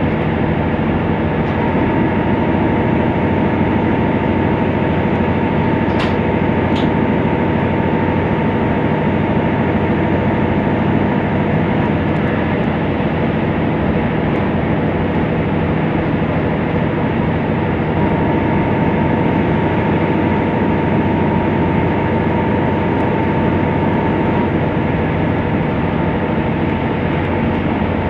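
KiHa 75 series diesel railcar running at speed, heard from inside the carriage: a steady drone of engine, wheels and rails. A thin steady whine sounds over it for the first several seconds and again later on, and there are two short ticks about six seconds in.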